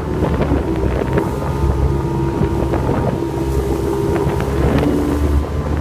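Motor of a High Caliber Customs river boat running steadily under way, with wind buffeting the microphone.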